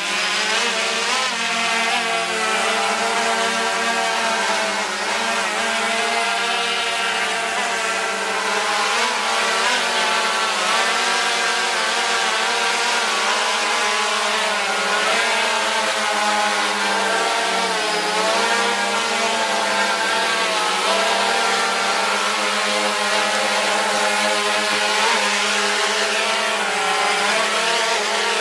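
DJI Phantom 2 quadcopter's four electric motors and propellers buzzing in flight, the pitch sliding up and down as the motor speeds change.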